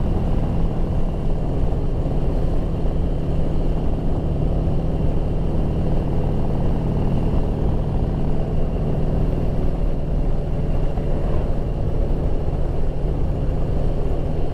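Motorcycle engine running steadily at cruising speed, with wind and road noise.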